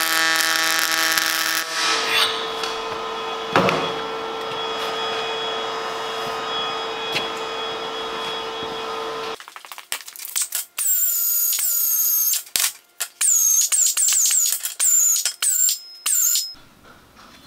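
Pulse MIG welding arc buzzing for about two seconds, then cutting off; a steady hum carries on for several seconds after it. Over the last half a run of short, sharp squeaks, each sliding down in pitch, comes in quick succession.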